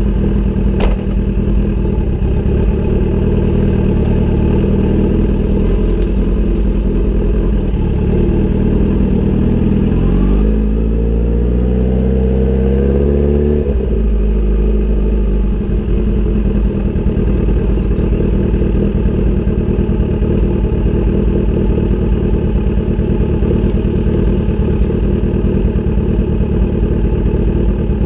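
Kawasaki Ninja sportbike engine running through an SC-Project aftermarket exhaust, idling steadily; about ten seconds in the engine note rises for a few seconds, then settles back to idle.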